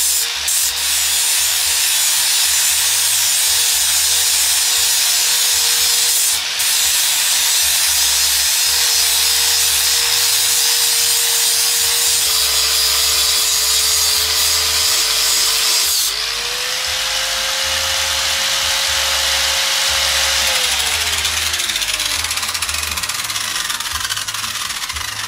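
Electric angle grinder with a flap disc grinding the braking face of a steel brake rotor to roughen its glaze: a loud, steady rasp over the motor's whine. About sixteen seconds in the grinding stops and the whine rises slightly, then a few seconds later it falls away as the grinder winds down.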